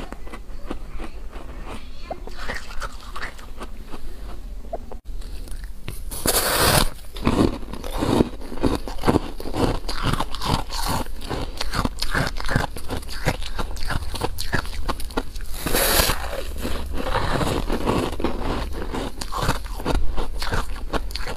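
A block of frozen ice being bitten and chewed: loud crunching bites about six seconds in and again near sixteen seconds, with quick cracking chews in between.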